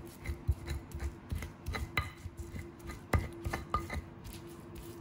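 Stone pestle (ulekan) pounding and grinding in a stone mortar (cobek), crushing chilli, garlic and kencur paste with a lump of palm sugar: irregular knocks and scrapes of stone on stone, over a faint steady hum.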